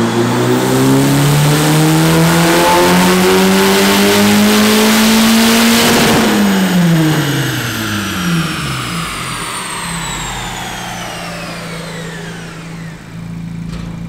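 Big-turbo MK5 VW GTI 2.0T TSI four-cylinder (Garrett GTX3076 turbo) making a full-throttle pull on a chassis dyno. The revs climb steadily for about six seconds, then the throttle is lifted; the revs fall quickly, a high whine winds down in pitch, and the engine settles to idle. The pull is run with the boost controller off and a large boost leak, which came from a popped-off intercooler coupler.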